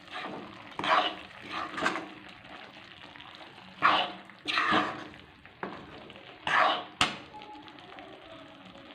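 Spoon stirring and scraping mutton and ground spices frying in oil in a kadai: about six separate scraping strokes over a faint steady sizzle.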